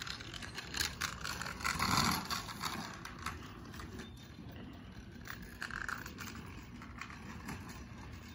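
Three-wheeled carving scooter's small wheels rolling and scraping over asphalt, with scattered clicks and rattles, loudest about two seconds in.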